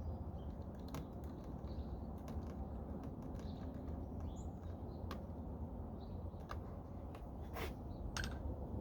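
Scattered small clicks and taps of hands and a tool working at plastic wiring-harness connectors in a truck door, with a few sharper clicks near the end, over a low steady hum.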